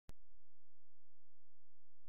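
A short click, then a steady, unchanging low hum.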